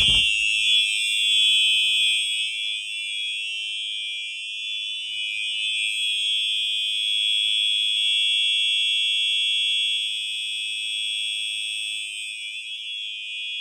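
Simplex 4903-9424 fire alarm horn strobe sounding a loud, steady, unbroken high-pitched electronic horn tone, set off by a pulled manual pull station.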